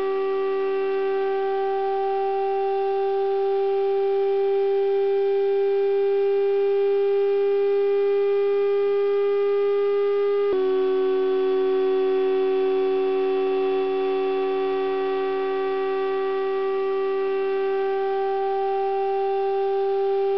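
Tambourine membrane driven by an electrodynamic shaker from a signal generator, giving a steady buzzy tone with many overtones. The pitch creeps very slowly upward and drops slightly about ten seconds in, as the drive frequency is retuned around one of the membrane's modal frequencies.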